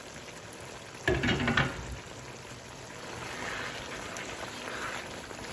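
Chicken jalfrezi curry bubbling and sizzling in a nonstick wok while a wooden spoon stirs through it. A short clatter comes about a second in. The sizzle comes as the oil starts to rise to the top, the sign that the masala is nearly ready.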